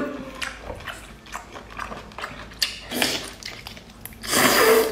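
Close-up wet eating sounds of octopus tentacles in sauce being chewed and sucked in, with small clicks and smacks and a louder, longer slurp near the end.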